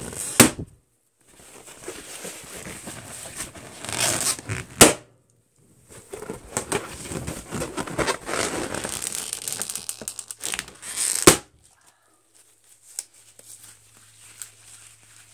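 Fingernails scratching and digging at taut red latex balloons, each stretch of scratching building up to a sharp pop as a balloon bursts: three pops in turn, the last about three-quarters of the way through, then quiet.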